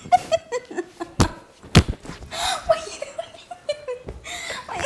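A woman laughing hard in short, repeated bursts, with two sharp thumps a little over a second in.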